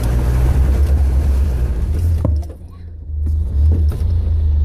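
Land Rover Discovery's engine running low and steady as it drives through deep mud, with a rushing noise over the first two seconds and a brief drop in level a little past halfway.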